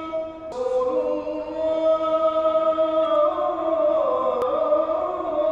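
Vocal music: a voice singing long held notes that step to new pitches every second or so, with a short break about half a second in. A single sharp click sounds near the end.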